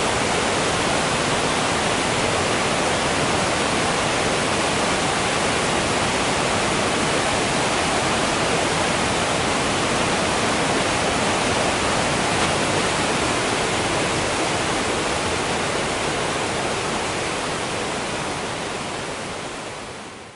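Waterfall rushing steadily, fading out over the last few seconds.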